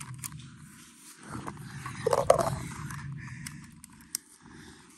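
Scraping and rubbing close to the microphone, with scattered small clicks and a louder stretch of scraping about two seconds in.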